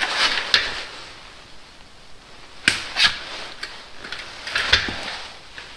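Three short bursts of clicking and rattling from hands working at the timing chain and cam sprockets of a Mercedes M113 V8: near the start, about halfway and near the end.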